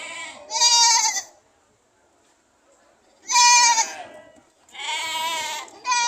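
Goats bleating: about five loud, wavering calls, each under a second long, with a pause of about two seconds between the second and third.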